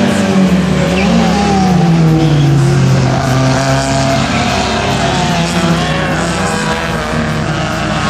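Race car engine running hard as the car goes past. Its pitch rises briefly about a second in, drops over the next second or so, then holds at a steadier, wavering note.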